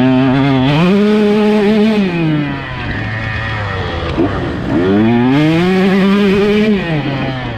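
Two-stroke motocross bike engine pulling hard: it revs up, holds high revs, then drops back, twice in a row.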